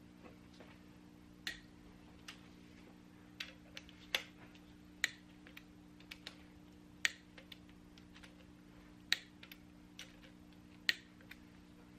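Click-type torque wrench tightening camshaft bearing cap bolts: a sharp click every second or two as each bolt reaches the set torque, with lighter ticks between them. A faint steady hum underneath.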